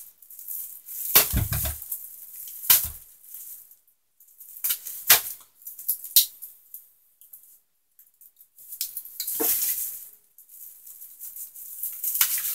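Plastic bubble wrap crinkling and rustling in several short bursts with pauses between, as it is pulled and worked off a canister filter's power cable.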